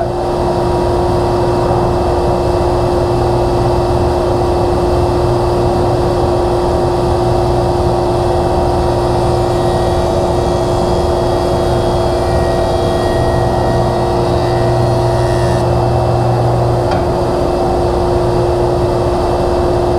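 Delta DJ-20 jointer running with a steady hum while its cutterhead takes repeated passes along the rough edge of a board to clean it up. A lower note swells during two stretches in the middle.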